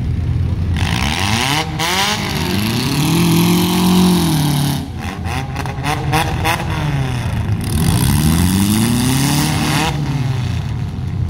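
Demolition derby car engines revving hard, the pitch climbing and falling in several long sweeps with a rough, hissing edge.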